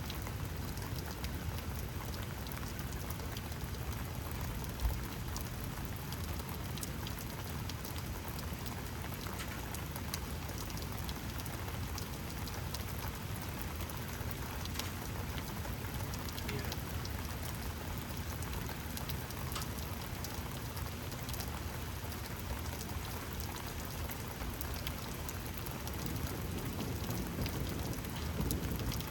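Steady rain from a thunderstorm falling on surfaces, with many small drops ticking.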